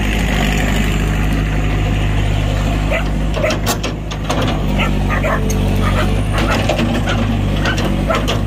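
Cat excavator's diesel engine running steadily, with a run of sharp knocks and clicks from about three seconds in.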